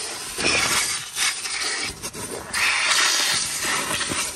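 Vacuum cleaner running, its nozzle dragged over cloth car-seat upholstery and sucking up crumbs; the hissing rush surges and drops several times as the nozzle moves and presses on the fabric.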